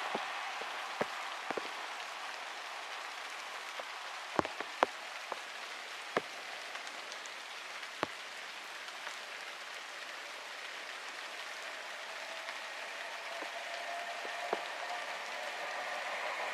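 Steady rain falling, with scattered sharp drips, a few louder ones among them. Near the end an approaching electric train's rising whine comes in over the rain.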